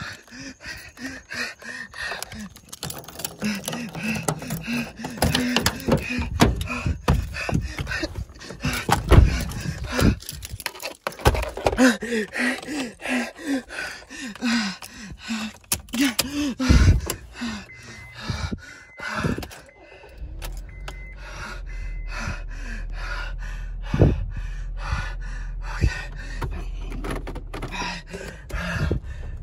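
A person panting and gasping hard and fast, with several sharp thumps and knocks along the way. About two-thirds of the way in, a low steady rumble sets in underneath.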